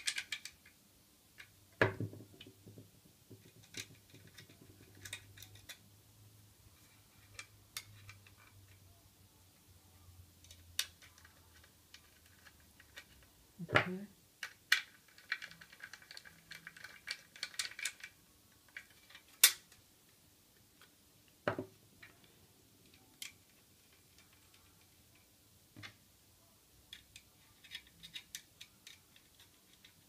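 Screwdriver and small screws clicking, ticking and scraping against a drive caddy as an SSD is screwed into it. There are scattered light ticks, a few sharper knocks and a busy patch of small rattling scrapes about midway.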